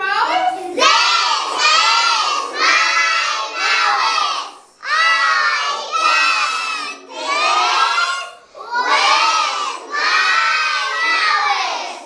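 A group of young children chanting loudly together in unison, phrase after phrase, with a couple of short breaks. They are reciting English classroom commands about the senses and parts of the face.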